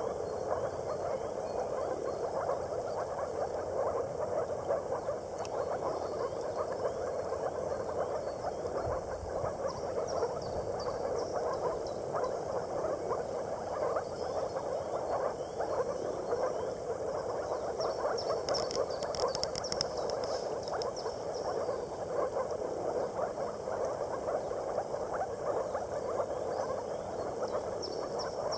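Moor frogs calling together in a dense, steady chorus: the breeding call of the males gathered in the water.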